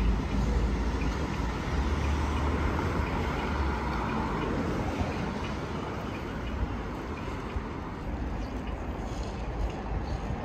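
City street traffic: cars and a truck passing a crossing, a steady rumble of engines and tyres that is heaviest in the first few seconds and then eases.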